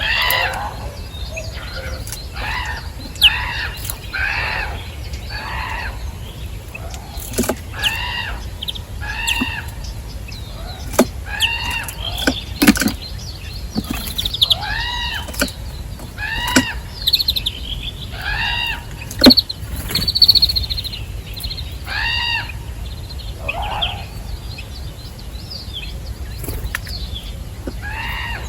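A bird calling over and over, short calls that rise and fall in pitch, about one a second, with a few sharp clicks between them.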